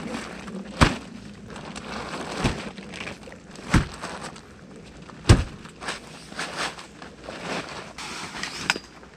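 Pop-up ice-fishing shelter being opened: fabric rustling and flapping, with several sharp snaps as the frame pops into shape, the loudest about five seconds in.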